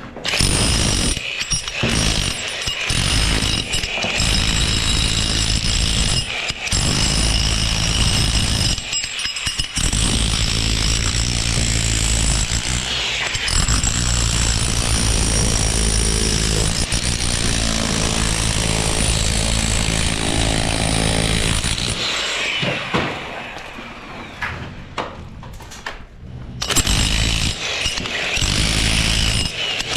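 Power tool running loudly in long stretches with a steady high whine. It stops briefly several times and drops to a lower level for a few seconds in the last third.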